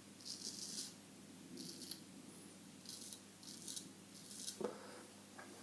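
Straight razor (a Solingen H. Geffgen 6/8) scraping through stubble in short strokes, about half a dozen in a few seconds, faint and scratchy.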